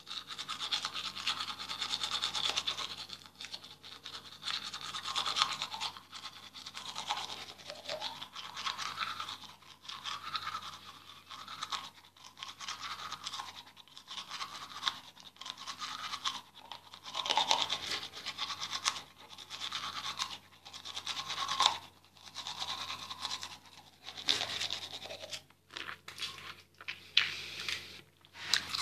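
Teeth being brushed with a manual toothbrush: quick back-and-forth scrubbing strokes in bursts of a second or two, with short pauses between.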